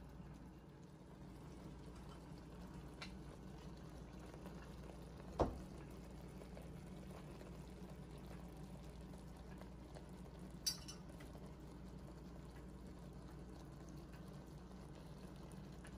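Creamy spinach sauce simmering gently in a pan on low heat, a faint steady bubbling. There is a single dull knock about five seconds in and a sharp click near eleven seconds.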